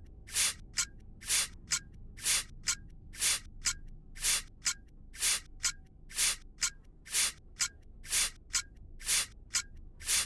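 Rhythmic hissing bursts in pairs, a longer hiss followed by a shorter one, repeating about once a second.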